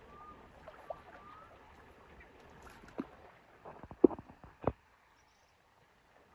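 A few sharp knocks and clicks over faint outdoor background. One comes about three seconds in, then a quick cluster over the next second or so, the loudest just after four seconds, and then it goes quiet.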